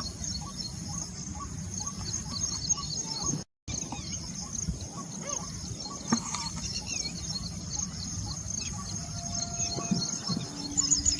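Insects shrilling steadily with birds chirping over them. The sound cuts out completely for a moment about a third of the way in.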